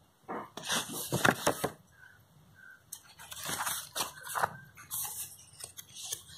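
Thick scrapbook journal pages being turned and handled, with papery rustling and flapping in two bouts: a loud one about a second in and another from about three to five seconds in.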